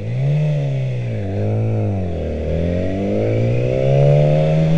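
Yamaha R6 motorcycle's inline-four engine running under way, its pitch rising and falling twice, then climbing steadily from about halfway through.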